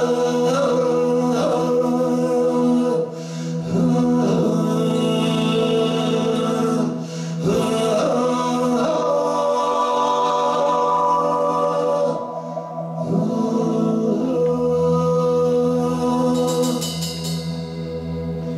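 Live ethno-ambient music: a man singing long notes that slide in pitch, over a steady sustained drone. A deeper bass note comes in about two-thirds of the way through.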